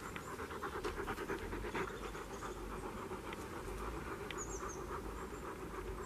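A dog panting rapidly, an even, quick run of breaths that goes on through the whole stretch.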